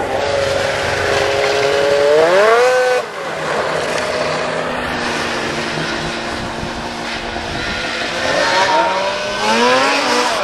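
Snowmobile engine running, revving up in pitch about two seconds in and backing off suddenly a second later, then revving up again near the end.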